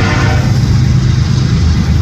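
A locomotive's K5HL air horn chord cuts off about half a second in, leaving a loud, steady low rumble.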